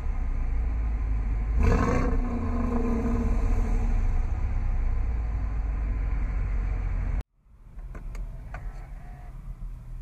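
Dodge 5.7-litre HEMI V8 idling with a deep rumble, blipped once in a short rev about two seconds in. The engine sound cuts off abruptly past the middle, leaving quiet background with a few light clicks.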